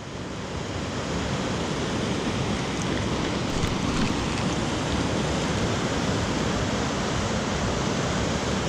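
Mountain river rushing over granite rapids and riffles, a steady whitewater noise that swells a little in the first second or so.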